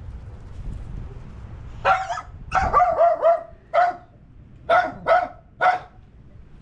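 A dog barking in short, sharp barks, about nine in all, starting about two seconds in, with four in quick succession and the rest spaced out.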